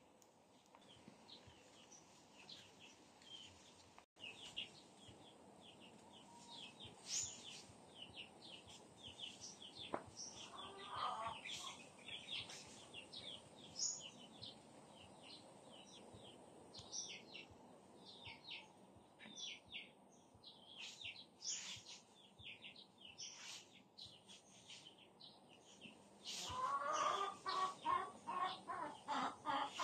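Small birds chirping in short, high notes throughout, with a chicken clucking in a quick, louder run of calls near the end.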